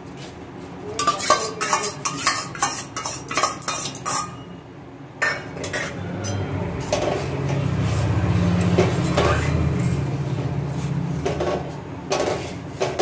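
A steel spatula and spoon clinking and scraping against a steel pan while batter is stirred into coconut milk, with quick metal clicks in the first few seconds, then a steadier low rumble in the middle.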